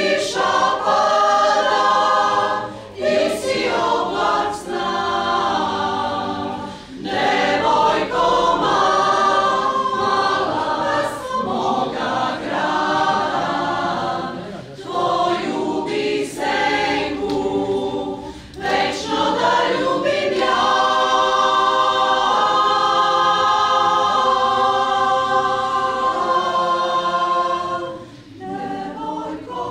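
Mixed choir of women's and men's voices singing a cappella in parts, in phrases with short breaks between them. About two-thirds of the way in the choir settles on a long held chord, which drops away shortly before the end.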